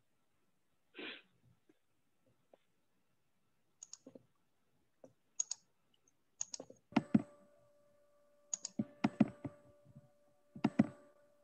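Computer keyboard typing and mouse clicks picked up by an open microphone on a video call: scattered clicks, growing denser and heavier in the second half. A faint steady hum comes in about seven seconds in.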